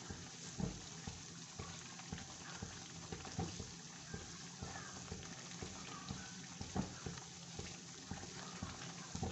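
Semolina roasting in hot ghee in a pan: a soft, steady sizzle with irregular light clicks and scrapes from a spoon stirring it.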